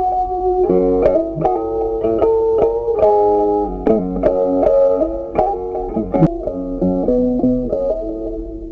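Background music: a melody of plucked-string notes in quick succession.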